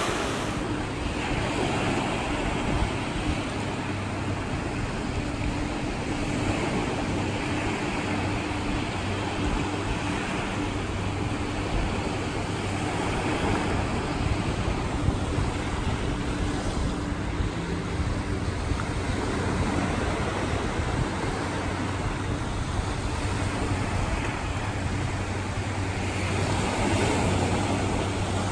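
Small waves breaking and washing up onto a sandy beach in steady surf, a little louder near the end, with a faint steady low engine hum underneath.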